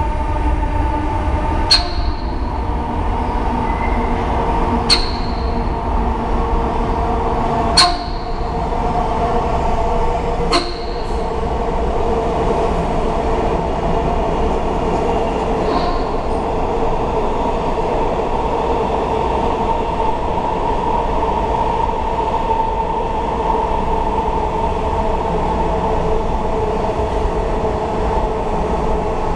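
Eight-car Washington Metro train of Alstom and Rohr cars running through an underground station without stopping: a steady rumble and drone from the wheels and motors. Four sharp, ringing clacks come a few seconds apart during the first ten seconds or so as it approaches.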